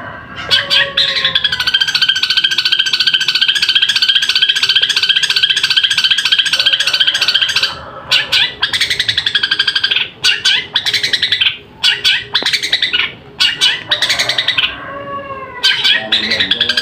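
Long-tailed shrike (cendet) singing a loud, fast chattering song of rapidly repeated notes. The song runs unbroken for the first half, then comes in shorter bursts with brief pauses and picks up again near the end.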